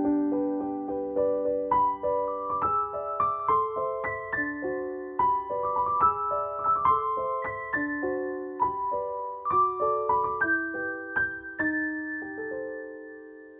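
Background music: a solo piano (electric piano) playing a gentle melody over chords. It ends on a held chord that fades out near the end.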